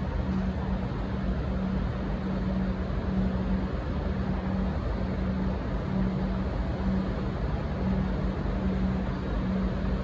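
Diesel railcar engines idling: a steady drone with a low hum that pulses about one and a half times a second.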